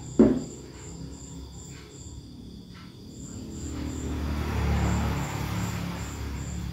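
A cricket chirping steadily in the background, a high thin chirp repeating about three times a second. A short thump comes just after the start, and in the second half there is a rising rustle and scrape of a knife cutting into a mango.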